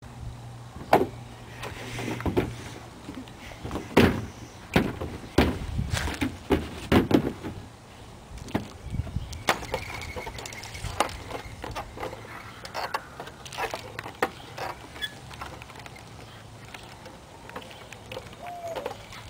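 Irregular knocks, clanks and creaks from a wooden backyard swing set and its hanging chains and ropes as a boy climbs onto a swing and rides it. The knocks are densest and loudest in the first half, over a steady low hum.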